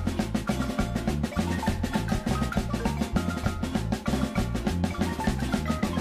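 Background music driven by busy drums and percussion over a bass line.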